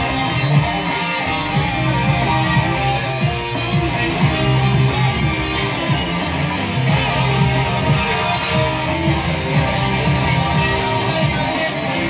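Live music with an electric guitar playing over a full, steady low end, continuous and loud.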